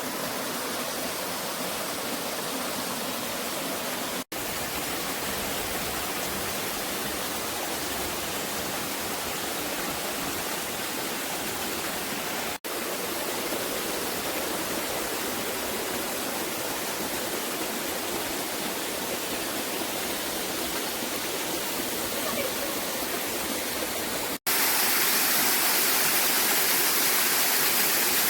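Steady rush of a waterfall's falling water, broken three times by momentary gaps and louder in the last few seconds.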